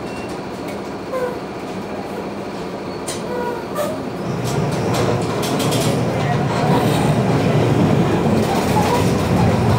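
Rumble and rattle of a moving vehicle heard from inside, growing louder about four seconds in as it picks up speed.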